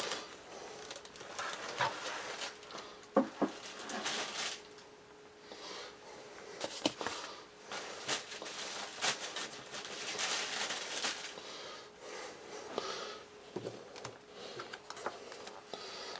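Plastic packaging crinkling and rustling, with small scattered clicks and knocks, as a new tablet computer is unpacked and handled. A faint steady hum runs underneath.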